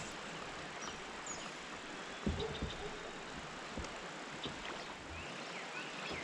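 Steady rush of river water around a kayak, with a few dull knocks about two seconds in and faint bird chirps.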